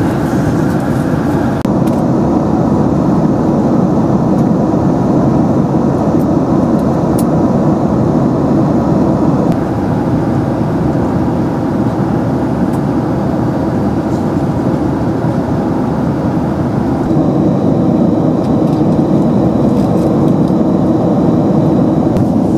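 Steady cabin noise inside a Boeing 767-300ER airliner in flight: an even, loud rush of airflow and engine noise. A faint thin high whine joins about three-quarters of the way through.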